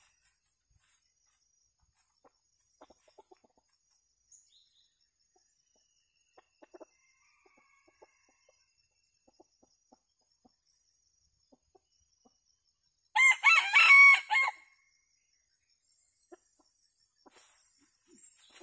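A rooster crows once, about 13 seconds in: a single crow lasting about a second and a half. Before it there are only faint scattered rustles of chickens scratching in dry leaf litter. Quiet clucking starts near the end.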